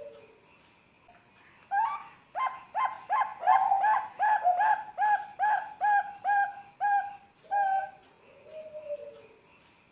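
Young zebra dove (perkutut, Bangkok strain), about three months old, cooing: from about two seconds in, a run of short, slightly falling notes at roughly three a second, then after a pause one softer, lower drawn-out note.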